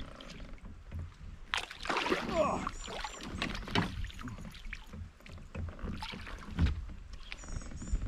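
Water splashing and irregular knocks and rustles around a fishing kayak while a hooked smallmouth bass is fought close to the boat.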